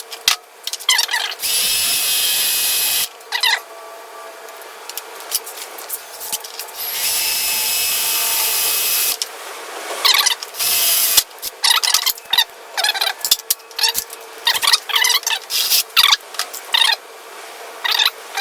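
Power drill run in two main bursts of about one and a half and two and a half seconds, plus a short third one, boring out a hole in a wheelchair's metal front-wheel mount with a drill bit. Short, squeaky scraping sounds come between the bursts.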